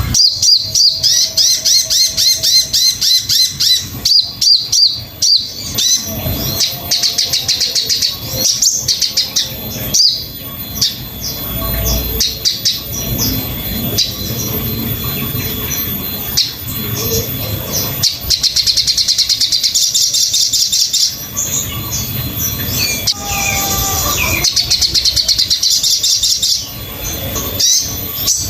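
Sogon (crested jay) singing: fast runs of high chirping trills in repeated bursts, with a few lower whistled notes between them.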